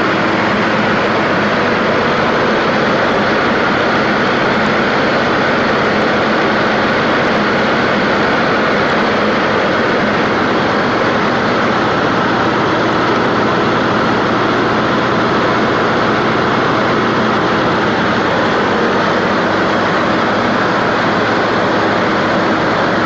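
John Deere PowerTech 4.5-litre four-cylinder turbocharged diesel driving a 100 kW MTU Onsite Energy standby generator, running at constant speed while supplying load. A loud, even drone with a steady hum, no change in pitch or level.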